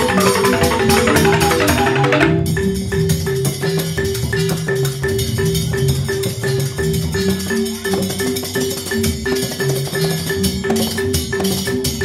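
Balinese joged bumbung gamelan playing an instrumental piece: bamboo xylophones struck in fast, busy patterns with drum and clicking percussion. About two seconds in the dense full texture drops away to a sparser rhythmic passage over a steady held note.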